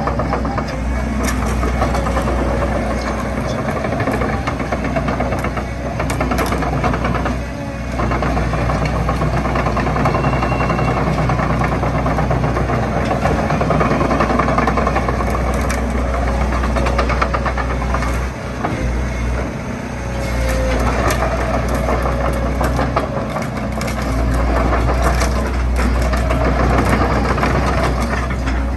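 Sumitomo SH130 hydraulic excavator moving on its tracks and swinging: its diesel engine runs steadily under load, with scattered sharp metallic clanks and rattles. The low engine drone dips briefly a few times.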